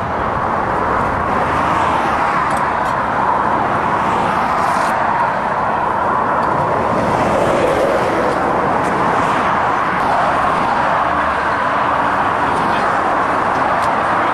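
Steady roadway traffic noise, vehicles running past on a multi-lane road.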